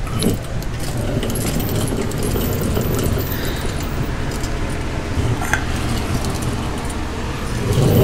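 A fan running steadily, with scattered light metallic clinks and rattles over it; the low rumble grows louder near the end.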